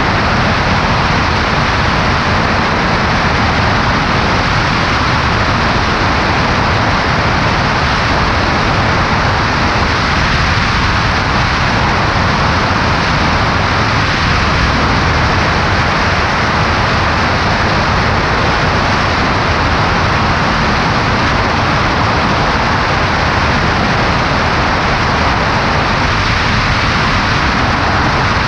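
Steady wind rush and engine-and-propeller drone of a Cessna 140A in flight, picked up by a camera on the left wing; unchanging throughout.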